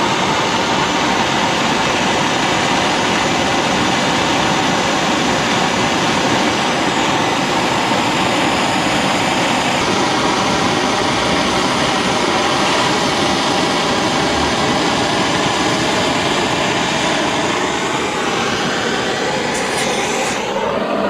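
Handheld gas torch flame burning steadily, a loud, even rushing noise as it heats paint-coated spanners to cure the coating.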